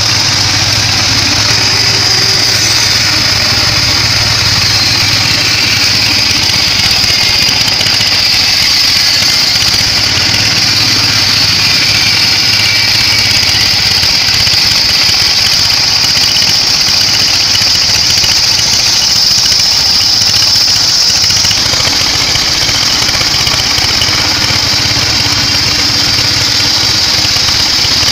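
Sawmill bandsaw running and sawing through weru wood: a loud, steady high-pitched sawing noise over a low engine hum, easing slightly about three quarters of the way in.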